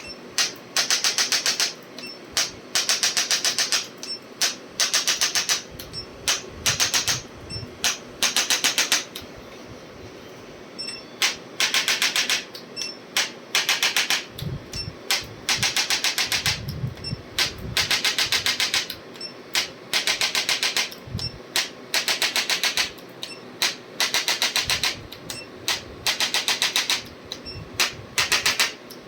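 A chiropractic adjusting instrument firing rapid trains of sharp clicks, about ten a second, in bursts of about a second that repeat every second or two. A few dull low thumps come in the middle.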